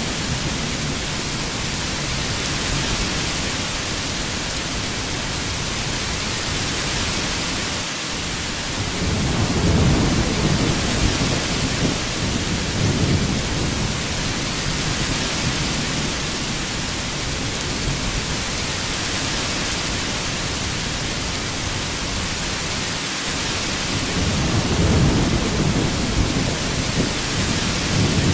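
Heavy rain falling in a steady hiss, with two low rolls of thunder: one about nine seconds in lasting several seconds, and another near the end.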